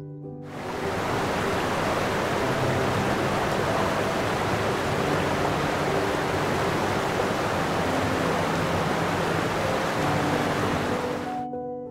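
Ocean surf, a steady loud rush of breaking waves, with soft background music underneath. The rush comes in about half a second in and fades out shortly before the end.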